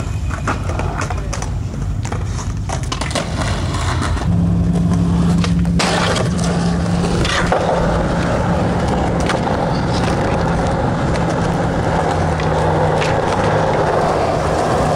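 Skateboard wheels rolling on concrete: a steady rumble that starts about four seconds in and runs on, with a few short clacks from the board.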